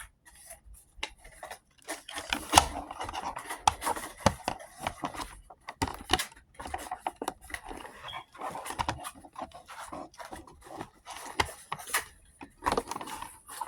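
Handling of a plastic anime figure and its packaging: irregular clicks, knocks and rustling scrapes, with a few sharper knocks as parts are fitted together.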